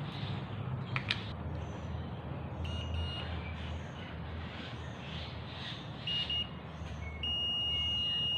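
Multimeter continuity tester beeping: two short high beeps, then one long steady beep from near the end, meaning the reconnected cable now has continuity. A low steady hum sits underneath, with a click about a second in.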